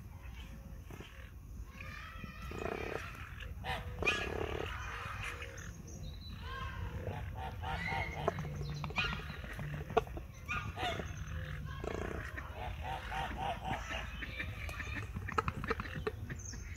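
Grey crowned cranes and their month-old chicks calling while they forage: a run of short, repeated calls, some high and some low.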